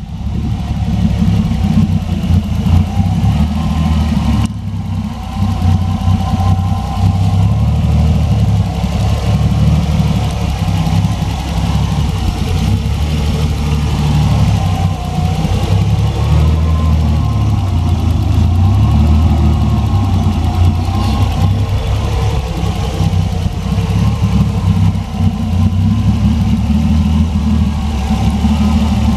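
Nissan Skyline R32's turbocharged RB20DET twin-cam straight-six idling steadily, with small swells in level.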